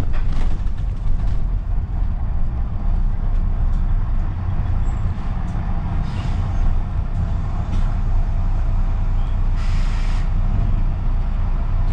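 London bus engine running with a steady low rumble, heard on board. About ten seconds in comes a short hiss of compressed air from the air brakes, with a fainter hiss a few seconds earlier.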